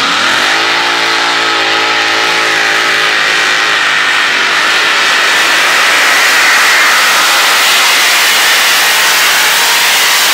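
Competition pulling tractor's engine at full throttle, dragging the weight sled down the track. Its pitch wavers in the first few seconds, then settles into a loud, steady, dense rush of engine noise.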